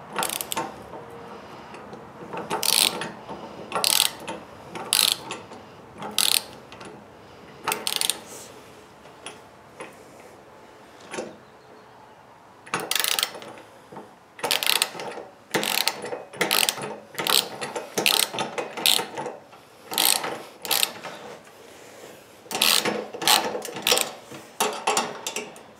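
Ratchet wrench clicking as it turns a socket on the handle-mounting bolts of a generator frame. The clicks come in uneven runs of strokes with short pauses between them, quieter for a stretch a little before the middle.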